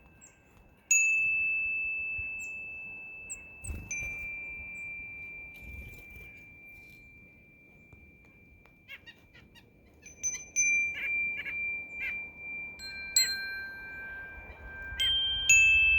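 Metal wind chime ringing, each strike holding a long, clear tone that slowly fades. One loud strike about a second in, then scattered strikes, growing busier in the last several seconds. Small birds chirp faintly in between.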